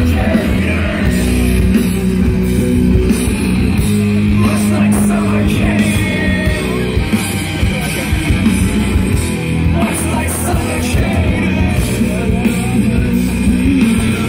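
Live hard rock band playing loud, with distorted electric guitars, drums and a singer, heard from in the crowd.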